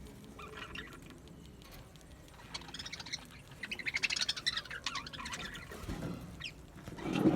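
Budgerigars chirping and warbling, with a dense run of quick high chirps a few seconds in and quieter chirps around it. A louder, lower sound comes right at the end.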